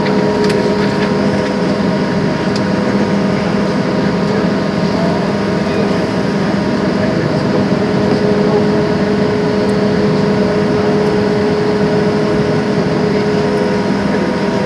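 Steady drone inside the cabin of a Boeing 737-700 as it moves back from the gate: an even low hum with a few steady tones held through it.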